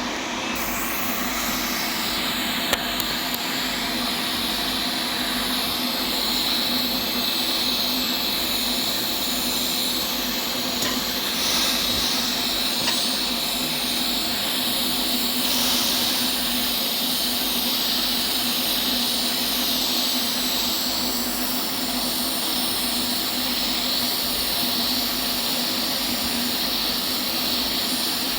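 Arc welding on stainless steel, laying the capping pass: a steady hiss with a constant low hum underneath.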